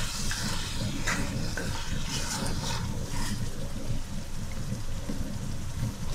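A wooden spatula stirs chicken pieces in spices and oil in an aluminium pot, the meat sizzling in its own juices, with a few short scrapes against the pot over a steady low rumble.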